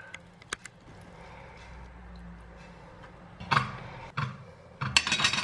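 Perforated metal skimmer knocking and scraping on the frying pan and a ceramic plate while fried peppers are lifted out and served. A few scattered clinks, with a quick cluster near the end.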